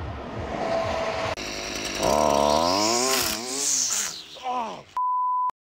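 Small two-stroke string trimmer engine revving up and down several times. Near the end comes a steady half-second censor bleep.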